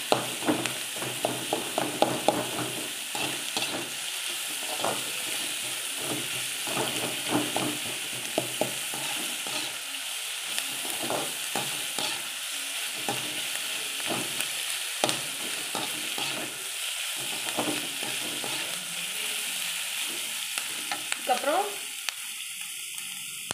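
Sliced onions sizzling in hot oil in a metal kadai, being sautéed until lightly browned. A perforated metal skimmer ladle scrapes and clicks against the pan in irregular spells as the onions are stirred, over a steady frying hiss.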